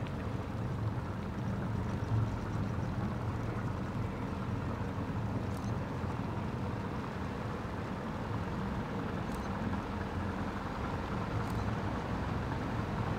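Diesel engine of a small cargo vessel running steadily as it passes, a low, even hum.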